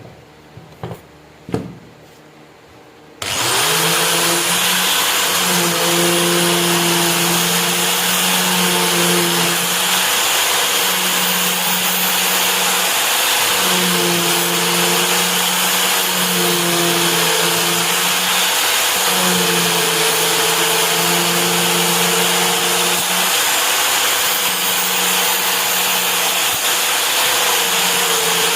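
An electric power tool of the grinding or sanding kind switches on about three seconds in, after a few light clicks. It then runs loud and steady, its motor pitch sagging slightly and recovering every few seconds.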